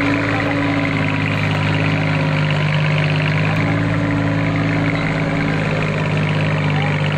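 Deutz-Fahr Agrolux tractor's diesel engine running steadily under heavy load as it pulls a loaded trailer up a muddy slope. A high whine dips in pitch and then rises again.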